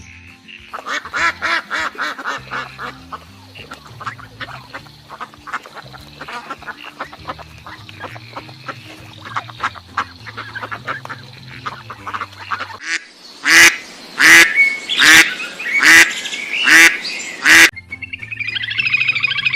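Ducks quacking: a long run of quick quacks, then six loud, evenly spaced quacks near the end, over background music.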